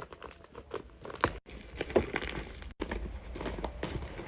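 A handmade paper squishy being squeezed: irregular crinkling and crackling of taped paper and its stuffing as it is pressed to check that it holds air.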